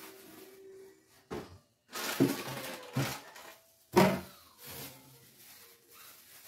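Plastic produce bags rustling and crinkling as they are handled, in several short bursts, with the loudest knock about four seconds in as produce is set into a clear plastic refrigerator crisper drawer.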